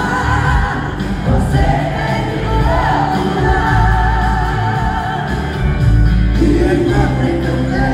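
Live sertanejo music played through a concert sound system in a large arena: a sung vocal line with vibrato over a band with heavy bass.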